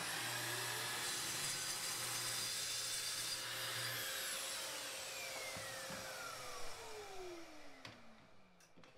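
Festool plunge track saw running along its guide rail and cutting through a board for the first few seconds, with a dust extractor drawing through its hose. After the trigger is let go the motor's whine falls steadily in pitch as the saw spins down and the sound fades near the end.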